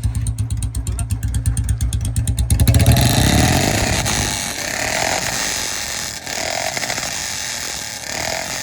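Royal Enfield Bullet single-cylinder engine thumping at idle through a loud aftermarket C-bend silencer. About three seconds in it is revved hard, and the revs rise and fall a few more times. The exhaust is ear-splittingly loud.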